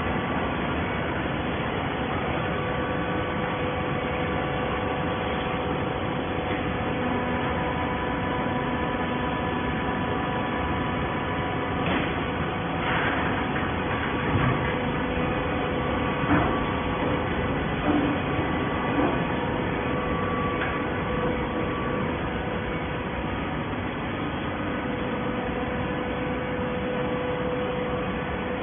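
Automatic PET bottle baling machine running with a steady hum and several held tones. A few short clanks and knocks come near the middle.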